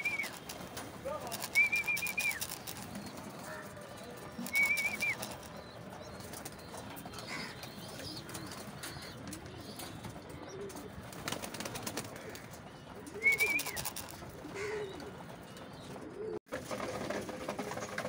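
Racing pigeons cooing, low and repeated, with four short high whistles and a few brief clattering bursts among them.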